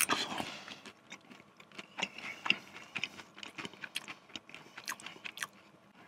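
Close-up chewing of a mouthful of Maggi noodles and popcorn chicken: irregular soft mouth clicks and smacks, with a sharp click right at the start as the fork leaves the mouth and a light fork scrape in the paper cup near the end.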